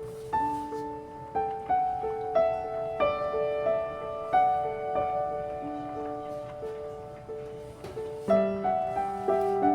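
Background piano music: a slow, gentle melody of single notes over held lower notes.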